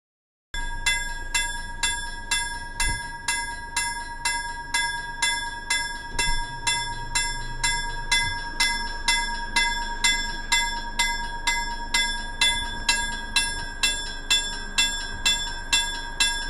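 Railroad crossing warning bell ringing continuously, striking about twice a second, starting about half a second in.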